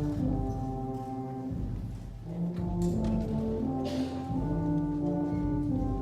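School concert band playing slow, held brass chords over low bass notes, the chords changing about once a second.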